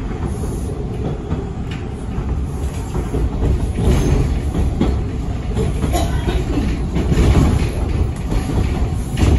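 TTC Line 2 subway train running, heard from inside the front car: a steady rumble of wheels on rail with several uneven clacks and knocks as the wheels cross the switches and crossovers, getting a little louder in the second half.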